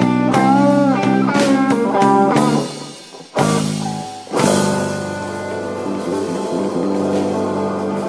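Live slow blues from a guitar, bass and drums trio: a guitar lick with string bends, then two band hits about a second apart, and a held chord left ringing out.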